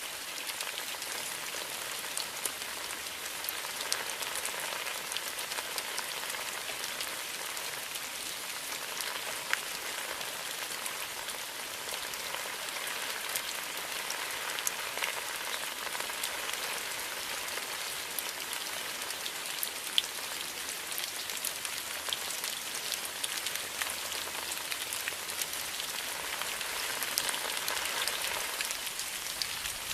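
Steady rain falling, an even hiss with scattered individual drops ticking sharply, one louder drop about two-thirds of the way through.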